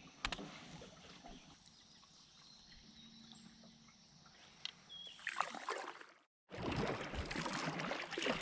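Kayak on a river current: faint water sloshing with a few light knocks of paddle or gear on the hull. After a sudden break about six seconds in, a louder, steady rush of moving water.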